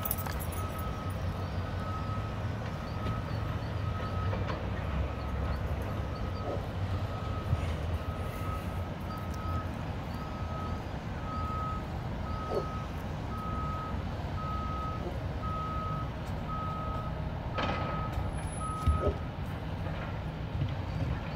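A construction vehicle's reversing alarm beeping about once a second, growing louder and then stopping near the end, over the low rumble of its engine. A sharp knock sounds just before the beeping stops.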